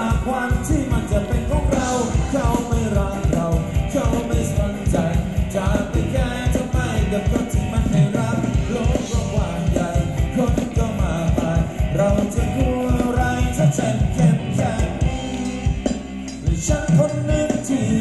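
Live band playing Thai ramwong dance music: a quick, steady drum beat with a singer's voice over it.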